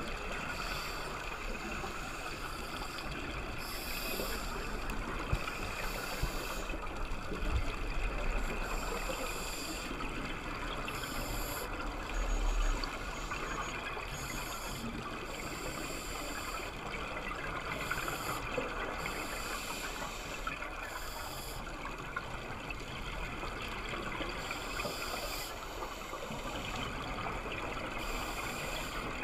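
Underwater sound of scuba divers breathing through their regulators: the hiss and crackle of exhaled bubbles rises in surges every two to three seconds over a steady watery rush, heard through the camera's waterproof housing.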